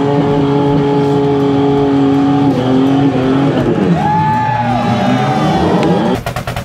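Rock-crawler buggy's engine held at high revs as it climbs a rock ledge, then revving up and down in bursts. About six seconds in, a fast even pulsing takes over.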